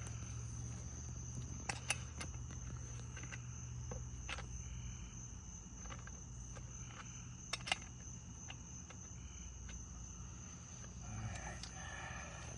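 Crickets chirping in a steady high-pitched chorus, broken by a few sharp clicks, the two loudest about two seconds and seven and a half seconds in.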